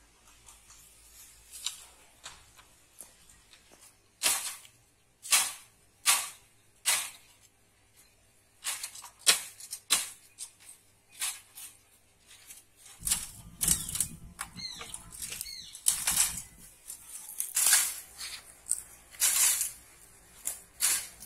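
Dry bamboo canes cracking and snapping under blows of a hand blade: a dozen or more sharp strikes at irregular intervals, often about a second apart, with rustling of dry canes between them.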